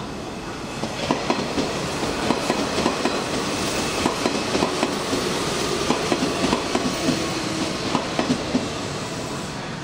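Hanshin Railway electric train running through the station, its wheels clacking over rail joints in a quick, uneven run of clicks. The rumble builds about a second in and fades near the end.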